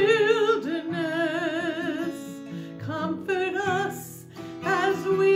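A woman singing long, held notes with vibrato, accompanied by an acoustic guitar, in a slow song.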